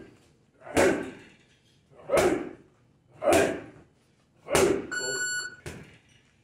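Gloved punches landing on a hanging heavy bag: five heavy thuds about a second apart, the last one lighter. A short, steady, high electronic beep sounds just before the last punch.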